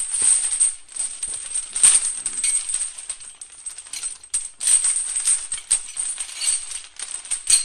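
Metal chain rubbing and jangling: a dense, irregular run of clinks and scrapes, with a brief lull a little after four seconds in and a sharp clink near the end.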